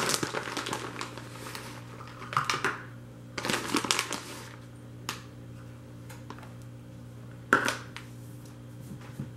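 Plastic bag of shredded mozzarella crinkling in several short bouts as the cheese is scooped out, with a light click midway and a sharper knock later.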